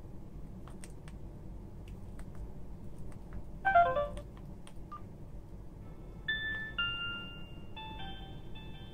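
Soft clicks of a Samsung B110 feature phone's rubbery keypad being pressed, then, about four seconds in, a quick falling run of electronic beeps as the keypad unlocks. From about six seconds in the phone plays a short electronic melody of several notes at once.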